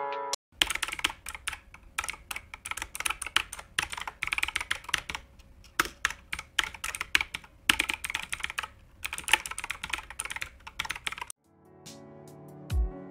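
Typing on a computer keyboard: rapid, irregular runs of key clicks broken by short pauses. The typing stops and soft music starts near the end.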